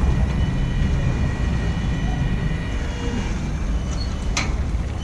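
Ferry's engine running with a steady low rumble, a faint high whine above it and a single sharp click about four and a half seconds in.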